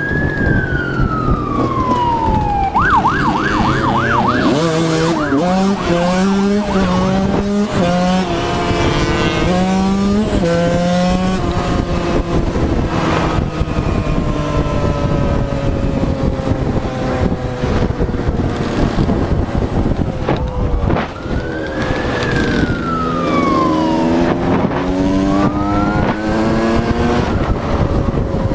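Dirt bike engine revving up through the gears, its pitch climbing and dropping at each shift, with a police siren wailing and briefly yelping over it; the siren wails again near the end.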